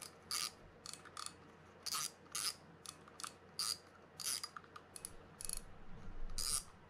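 Shimano Stradic 4000FJ spinning reel's drag clicker clicking in a dozen or so short, uneven bursts as the spool is turned against the drag by hand. This is a drag test after a service: the clicker is seated and working.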